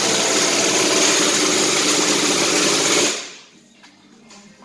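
A power tool or similar machine runs loudly and steadily with a hissing whir, then cuts off about three seconds in.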